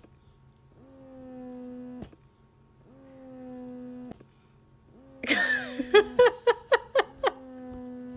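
A chocolate Labrador giving long, low moaning whines, one steady pitch each, that swell and cut off sharply, repeated about every two seconds. About five seconds in, a loud burst of quick rhythmic voice sounds, about four a second, breaks in.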